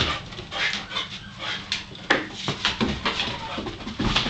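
Labrador Retriever puppy moving about on a wooden porch deck with a bird wing: irregular clicks and scuffs, with small dog sounds mixed in.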